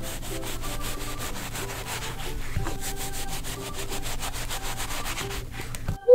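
Plastic knife sawing back and forth through a roll of cotton candy on a wooden cutting board: quick, dense rasping strokes that stop suddenly near the end.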